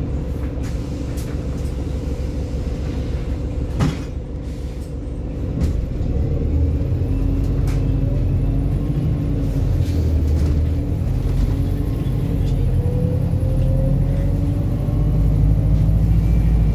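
Volvo B5TL bus's diesel engine rumbling, heard from inside the saloon, growing louder as the bus pulls away, with a rising whine as it gathers speed in the second half. A sharp knock sounds about four seconds in.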